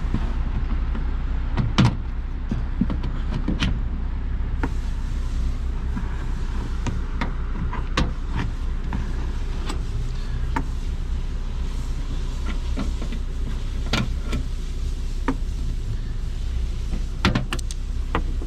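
Plastic retaining clips being pried out of a 2019 Kia Rio's trunk lid trim panel: scattered sharp clicks and knocks at irregular intervals, over a steady low rumble.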